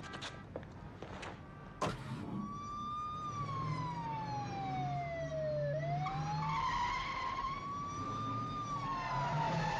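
Police car siren wailing slowly, its pitch falling and then rising again, over a car engine running. A single sharp knock comes just before the siren starts, about two seconds in.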